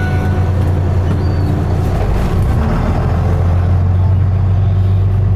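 Lobster boat's engine running with a steady low drone; its low note shifts slightly about two seconds in.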